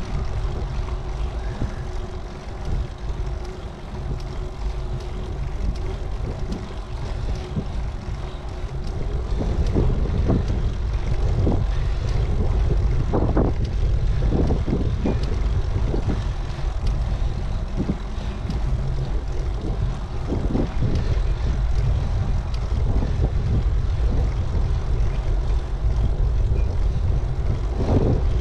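Wind rumbling on the microphone of a moving bicycle. It gets louder about ten seconds in, and a few short knocks come through.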